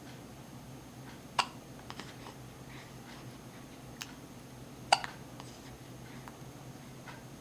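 A pet hiccuping twice, two short sharp hics about three and a half seconds apart, with a few faint clicks between them.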